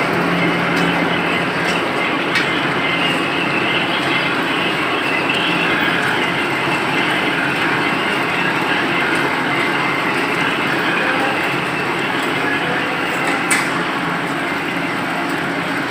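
A screen-printing machine running, a steady mechanical clatter with a few scattered clicks and one sharper click near the end.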